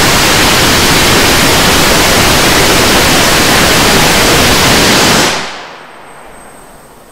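A 10 kN hybrid rocket engine firing on a test stand, a loud steady rushing noise with no pitch. It stops about five and a half seconds in, dying away quickly as the engine shuts down.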